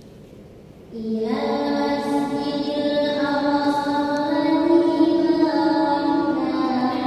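A girl's voice reciting the Quran in murottal style, starting about a second in with one long melodic phrase that steps up and down in pitch.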